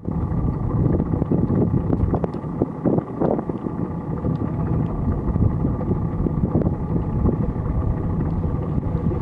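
Wind buffeting the microphone: a steady, gusting rumble.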